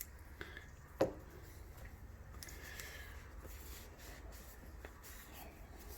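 Faint rubbing and handling noise of a cleaning squeegee being worked through a pistol barrel, with one sharp click about a second in, over a low steady hum.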